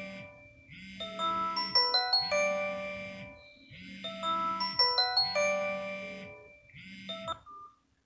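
BlackBerry Q10 smartphone ringing for an incoming call: its ringtone, a short bright melody, plays through the phone's speaker and repeats about every three seconds. The ringing stops abruptly near the end as the call goes unanswered.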